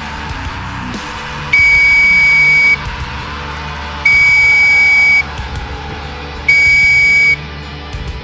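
Three long, loud electronic beeps, each a steady high tone lasting about a second, spaced about two and a half seconds apart, over background music.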